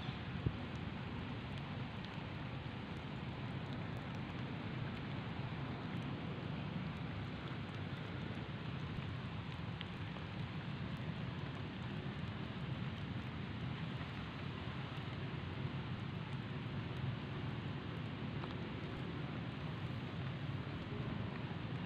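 Steady, even outdoor background hiss with no distinct source, and a single short click about half a second in.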